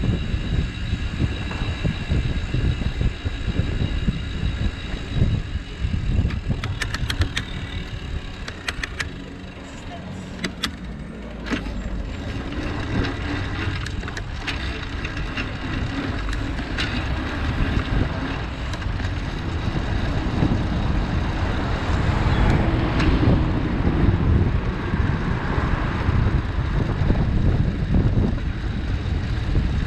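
Wind and road noise from a cargo bike riding along a city street, with passing traffic, and a run of sharp clicks about a quarter of the way through.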